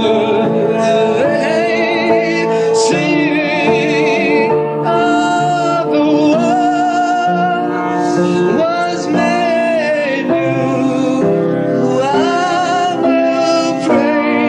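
Music from a praise song: a voice sings long held notes with vibrato over a sustained accompaniment.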